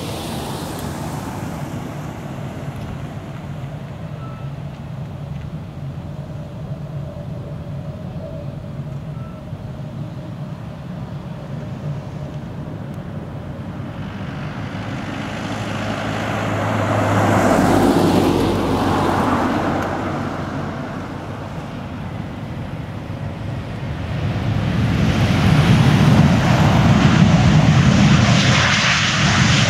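Twin-engine jet airliner landing. Its engine noise swells as it comes down over the runway a little past the middle, eases off, then rises again, louder, as it rolls out along the runway near the end.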